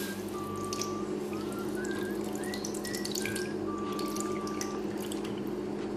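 Coconut milk poured in a thin stream into a metal pot of milk, a steady trickling and splashing with small drips.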